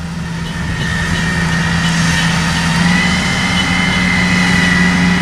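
Diesel engine of a rice combine harvester running steadily and growing gradually louder, its pitch stepping up slightly about three seconds in.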